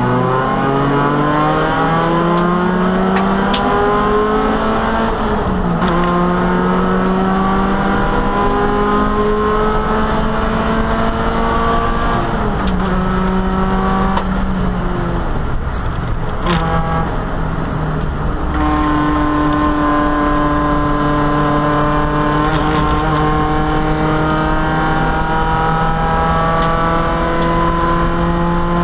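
Opel Kadett E race car engine heard from inside the stripped cabin at full throttle. It revs up through the gears with upshifts about 6 and 12 seconds in, eases off with a sharp click around 16 seconds in, then pulls steadily again for the rest of the stretch.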